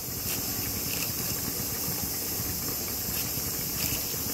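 A steady hiss, with a few faint soft scrapes and ticks as a steel spoon scoops flour from a bag and tips it into a steel bowl.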